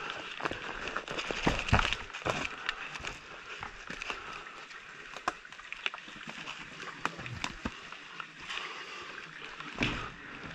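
Rustling and scuffing of an airsoft player's clothing and gear as he moves, with scattered sharp clicks and heavier thumps about two seconds in and near the end.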